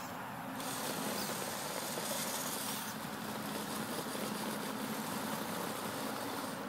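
Electric RC rock crawler's motor and geartrain whining steadily as it crawls slowly over rocks.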